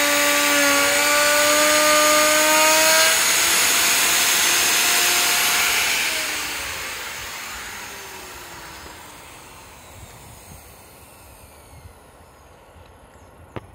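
Handheld electric wood router running at high speed with a steady whine while trimming the edge of a wooden panel. About six seconds in it is switched off, and the whine falls in pitch and fades as the motor spins down. A single sharp click near the end.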